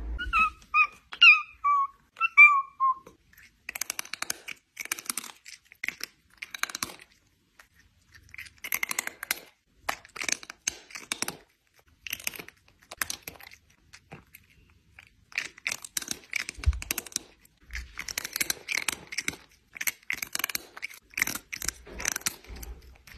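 A domestic cat gives a few short, chirping meows, then a long run of short, crackly, raspy bursts of noise in groups.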